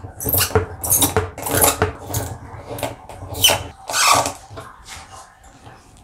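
A run of short rustles and clicks as a plastic water-supply hose is handled and its connector threaded onto a portable washing machine's inlet, fading toward the end.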